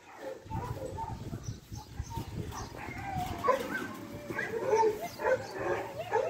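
Several dogs barking in short, quick calls as they play, the calls growing busier in the second half.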